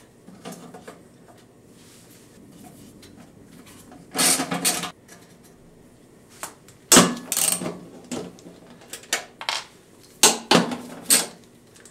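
Socket ratchet undoing the 10 mm nuts on a Toyota Prius hybrid battery's metal cover. Short bursts of ratchet clicking and metal clinks come about four seconds in, about seven seconds in, and repeatedly near the end.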